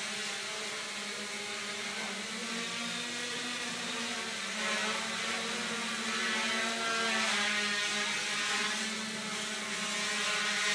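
Homemade quadcopter in flight: its four E-max 2215 brushless motors spinning 8x4.5 propellers make a steady whirring hum of several pitches that shift slightly as the motor speeds change. It grows louder about four and a half seconds in and again around seven seconds.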